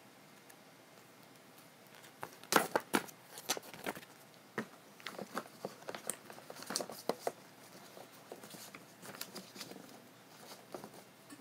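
Irregular sharp clicks and taps of a computer keyboard and mouse in use, starting about two seconds in, loudest just after, then lighter scattered clicks.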